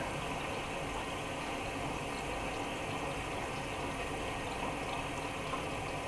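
Miele washing machine filling with water for the first rinse: a steady rush of water running in through the inlet.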